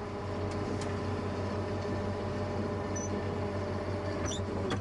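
Tractor engine running steadily under load while round baling, with an even low hum and a few brief high squeaks late on.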